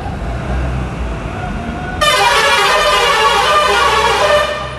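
A vehicle horn sounds one long, loud blast of about two and a half seconds, starting about halfway in, over a low rumble of road traffic.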